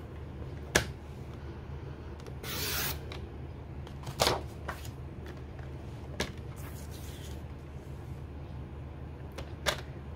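Sliding-blade paper trimmer cutting cardstock: a short scraping swish as the blade runs through the card about two and a half seconds in, among several sharp plastic clicks from the rail and blade carriage as the paper is set and the cutter is moved.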